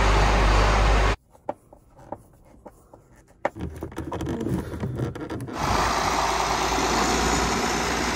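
John Deere 4840 tractor's six-cylinder diesel engine running, cut off abruptly about a second in. A quiet stretch follows with a few small sharp clicks and rubs as a plastic electrical connector is handled. About halfway through, a loud steady rush of tractor engine and wind noise comes in.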